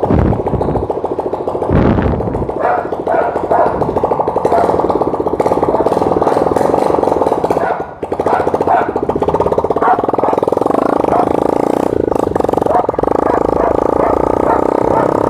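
Honda ML 125 single-cylinder four-stroke engine running with the muffler removed, a loud rapid exhaust pulse with no silencing. It dips briefly about eight seconds in, then picks up again.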